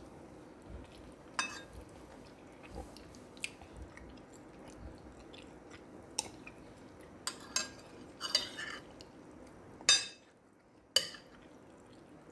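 Close-miked eating sounds: chewing, with sharp clicks of a metal spoon against a ceramic plate scattered throughout. The loudest two clicks come near the end, about a second apart.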